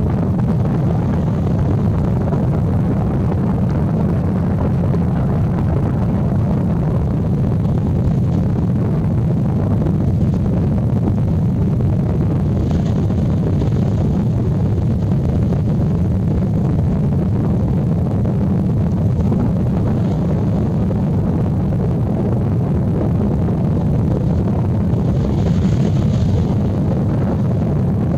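Steady low rumble of wind buffeting the microphone, with a couple of faint, brief higher sounds about halfway through and near the end.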